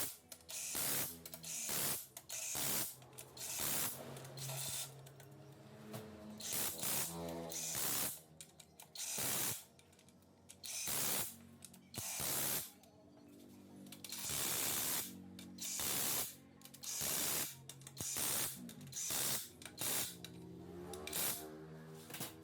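Short, sharp hissing blasts of spray, one after another about every second with a few longer gaps, during work on an automatic transmission.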